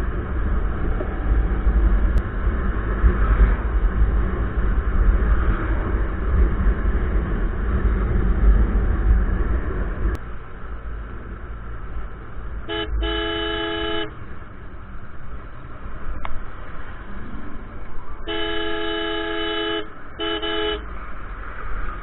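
Wind rumbling on a motorcycle-mounted action camera's microphone at road speed, easing off about halfway through. Then a vehicle horn honks in two bouts: a short toot followed by a blast of about a second, and later a longer blast followed by a quick toot.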